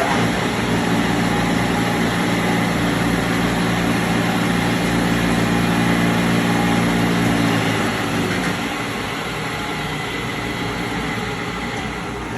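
The main spindle of a 15 HP wide belt sander is switched on and runs, a steady machine noise with a hum of several low tones. The hum fades out about eight seconds in while the running noise continues.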